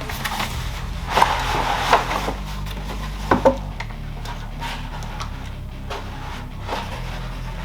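Plastic clamshell packaging and cardboard being handled and pulled apart: rustling with a series of sharp clicks and knocks, the loudest in the first four seconds.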